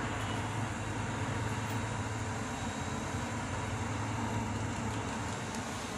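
Steady low hum with an even hiss: the background room tone of a shop, with no sudden sounds.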